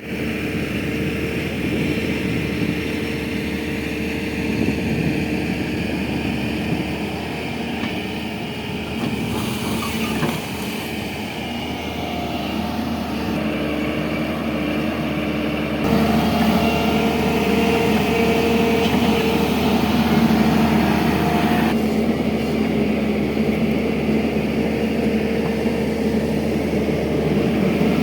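Hydraulic excavator's diesel engine running continuously with steady tones over a rumble, getting louder about sixteen seconds in.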